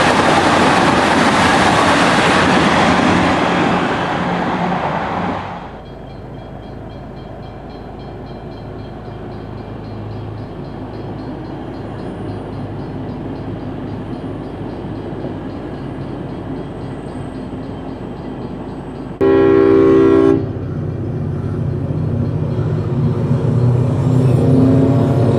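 A Comeng electric suburban train passing at speed, its loud rolling noise cutting off about five seconds in; then the lower, steady running of a V'locity diesel railcar set. About nineteen seconds in, one horn blast of about a second from a diesel freight locomotive, then its engine growing louder.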